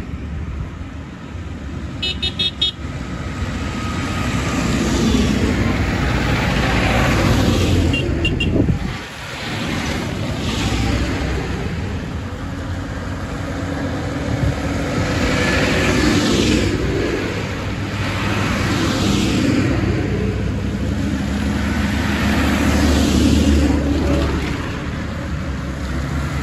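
A line of tractors and cars passing on a wet road: engines running, with tyres hissing on the wet tarmac as each vehicle goes by. A quick series of short horn toots comes about two seconds in, and two short toots near eight seconds.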